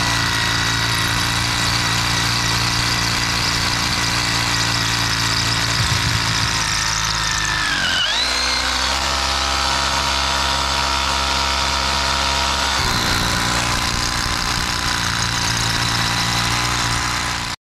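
Milwaukee M18 Fuel cordless rotary hammer hammer-drilling through a concrete foundation. It runs steadily, dips about eight seconds in and runs at a lower note for about five seconds, then picks back up, and cuts off suddenly at the end.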